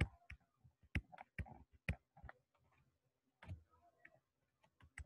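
Faint, irregular clicks and taps of a pen stylus on a tablet surface during handwriting.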